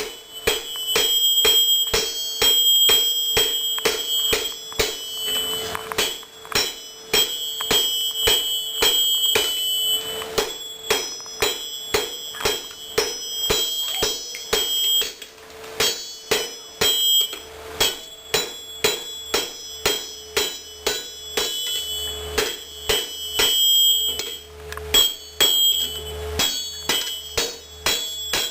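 Hand hammer striking a hot 4340 steel sword blank on an anvil to draw it out: a long run of blows, about two to three a second, broken by a few short pauses. Each blow sets the anvil ringing with a high, lingering ring.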